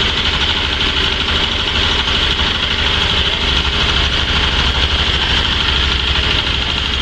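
Small engine running steadily, driving a coffee bean washing machine's rotating drum, with a steady higher hiss over the low engine sound.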